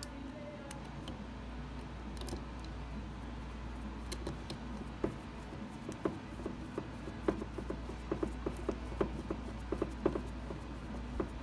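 Faint, irregular small clicks and taps over a steady low hum, growing more frequent from about halfway through.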